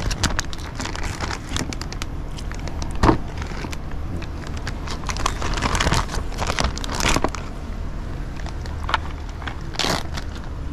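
Plastic zip-top bag crinkling and crackling in irregular bursts as pieces of fish fillet are handled into it, over a steady low rumble.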